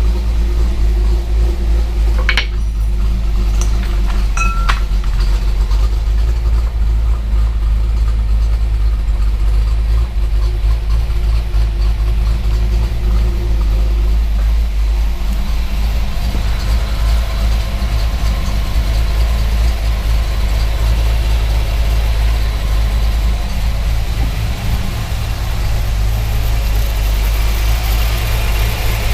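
The 5.0 V8 of a 1994 Mustang Cobra idling steadily, with a couple of short clicks in the first few seconds. Its sound shifts a little about halfway through.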